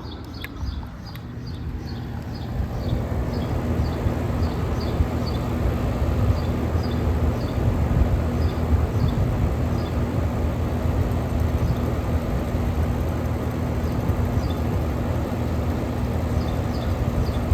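Outdoor central air conditioner condenser unit running: a steady fan rush over a low compressor hum, growing louder over the first three seconds and then holding level. A faint high chirp repeats about twice a second behind it.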